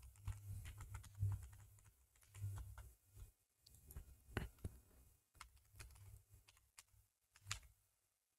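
Faint typing on a computer keyboard: irregular runs of key clicks as text is entered into form fields.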